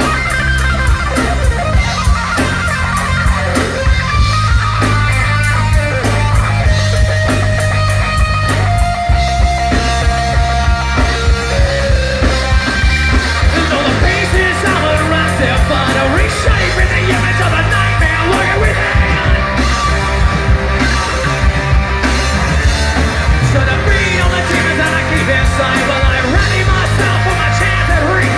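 Live rock band playing loud with amplified electric guitars, bass guitar and a drum kit, the drums keeping a steady beat.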